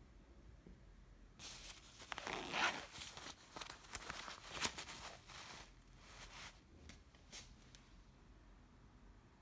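Nylon jacket shell rustling and crinkling as a hand grips and folds the jacket open, with a few sharp clicks mixed in. It starts about a second and a half in and dies away about two-thirds of the way through.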